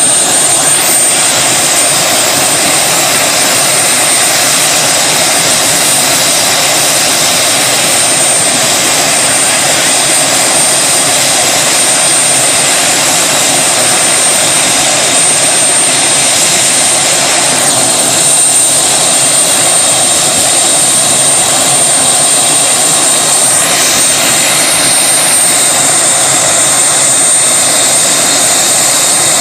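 Helicopter in flight, heard from inside the cabin: a loud, steady rotor and engine noise with a thin, constant high whine over it.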